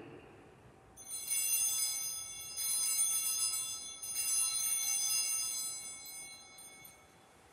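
Altar bells rung three times, about a second and a half apart, each ring high and bright and dying away slowly. They mark the elevation of the consecrated host at Mass.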